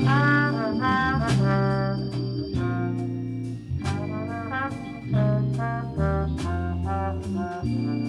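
Jazz band playing, its brass section of trumpets and trombones sounding chords and short accented figures over a walking bass, with cymbal and drum strikes.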